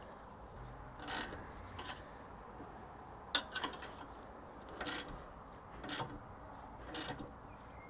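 Hand ratchet clicking in short bursts about once a second as the strut-to-hub bolts are tightened, each back-swing giving a brief run of pawl clicks.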